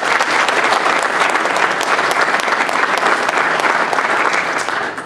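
Audience applauding, with many hands clapping together; the clapping dies away near the end.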